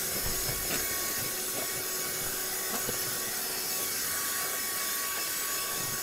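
Silvercrest cordless wet and dry handheld vacuum cleaner running steadily with a faint motor whine, its nozzle rubbing and scraping over a ribbed rubber car floor mat.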